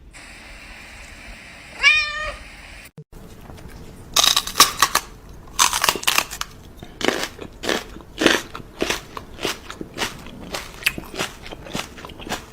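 A cat meows once, a short wavering call. Then comes a long run of irregular crunching sounds, about one or two a second.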